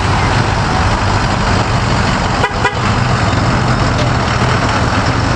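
Ford Super Duty pickup's engine idling with a steady low hum, under a constant rush of noise.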